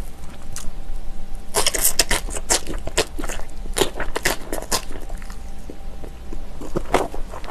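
Wet crunching and chewing of mouthfuls of napa cabbage kimchi and rice. A dense run of crunches starts about a second and a half in, followed by steady chewing strokes a few per second and one loud crunch near the end.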